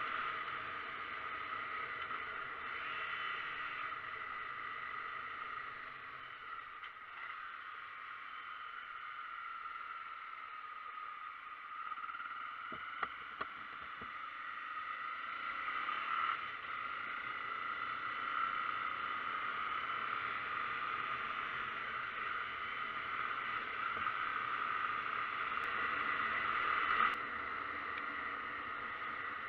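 Motorcycle running steadily on the move, with road and wind noise.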